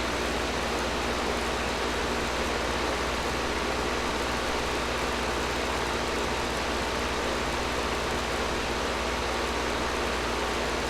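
Air conditioner running steadily: an even rush of air with a low hum underneath.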